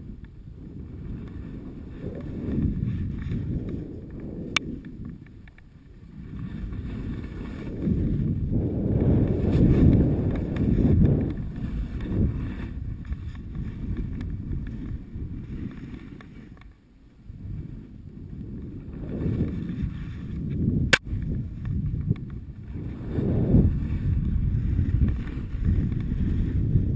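Wind rushing over a moving action camera's microphone during a run down a snowy slope, a low rumble that swells and drops every few seconds. Two sharp clicks stand out, one a few seconds in and one about three quarters of the way through.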